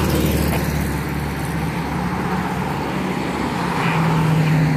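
Cars passing close by on the road, a rush of tyre and engine noise, with the steady drone of a fire truck's diesel engine growing stronger in the second half as it pulls out of the bay.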